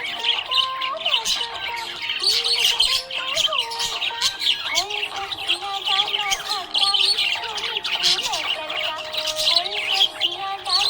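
Budgerigars chirping and chattering without a break, a dense run of quick high chirps and squawks.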